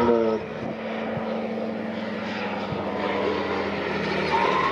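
Blackshape Prime light aircraft's 100 hp Rotax 912 propeller engine droning steadily overhead as it manoeuvres in a mock dogfight.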